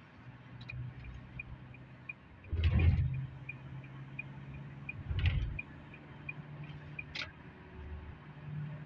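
A car's turn-signal indicator ticking evenly, about three ticks a second, heard inside the cabin over a steady engine and road hum. Two louder thuds come about a third and about two-thirds of the way through.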